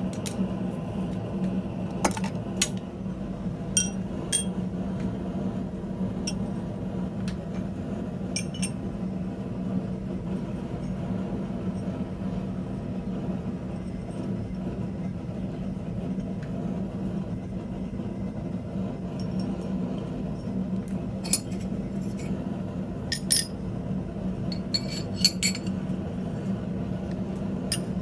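Steady machine hum with scattered light metallic clinks and taps, several in quick clusters, from steel pieces being handled while forging a trivet.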